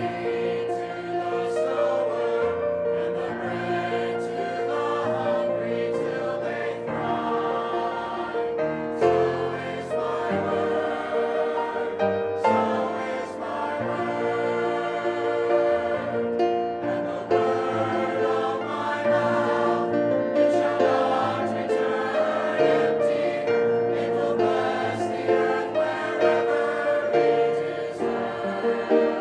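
Small mixed choir of men's and women's voices singing a hymn, over instrumental accompaniment with held bass notes.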